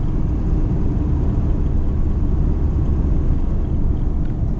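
Ford F-250 pickup heard from inside the cab while driving: a steady low rumble of engine and road noise.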